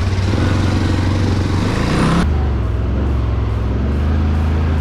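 ATV engine running steadily, with a rushing noise over it that cuts off suddenly about two seconds in.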